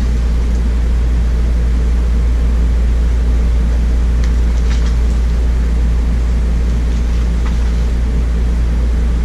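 Steady low mechanical hum with a deep drone underneath, unchanging throughout, with a few faint clicks around the middle.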